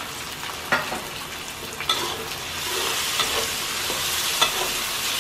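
Chopped tomato and onion sizzling in hot oil in a wok while being stir-fried with a metal spatula, which clicks against the pan four times. The sizzle grows louder about halfway through.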